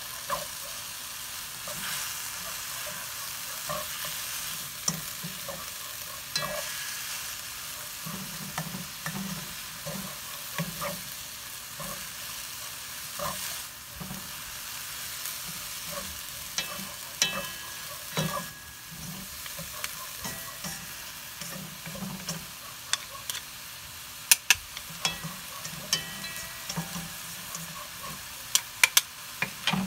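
Mung bean sprouts sizzling as they are stir-fried without oil in a nonstick wok, tossed with wooden chopsticks that tap and scrape against the pan. The sharpest clicks come in a cluster near the end.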